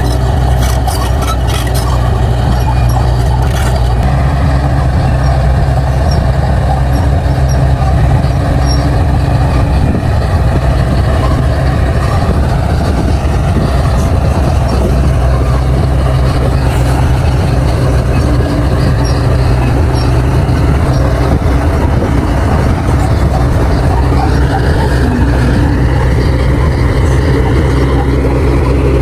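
Crawler bulldozer's diesel engine running steadily while the machine works, with scattered clicks in the first few seconds and a higher whine rising briefly near the end.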